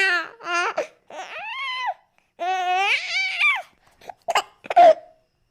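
Young fox's run of high, wavering, laughing calls, several calls broken by short gaps, with a longer call in the middle and short sharp yelps near the end.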